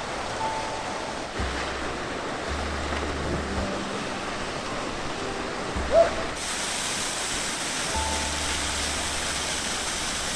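Waterfall pouring into a glacial melt lake, a steady rush of falling water that turns brighter a little after six seconds in, under soft background music with spaced low bass notes. A short rising note stands out about six seconds in.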